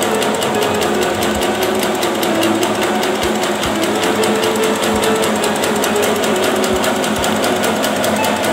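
Meatball-forming machine running: a fast, steady mechanical rattle with a hum beneath.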